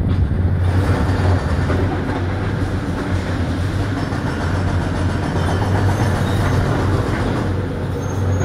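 High-reach demolition excavator at work, its diesel engine a steady low drone under a continuous crunching rumble of the concrete silo wall being broken up and rubble falling.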